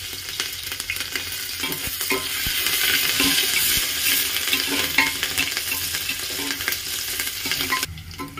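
A tempering of panch phoron, ginger and green chillies sizzling in hot oil in an aluminium pressure cooker, stirred with a metal spatula that clicks and scrapes against the pan. The sizzle falls away sharply near the end.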